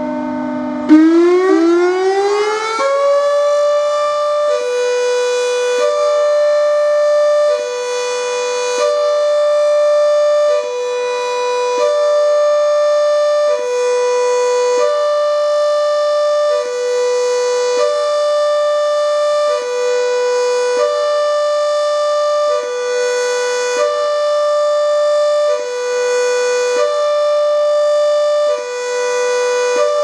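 Broadmoor Hospital's tower-mounted electro-mechanical warning siren sounding in a test. About a second in it surges and climbs in pitch over about two seconds, then settles into a steady two-tone hi-lo alternation: the higher pitch held about two seconds, the lower about a second.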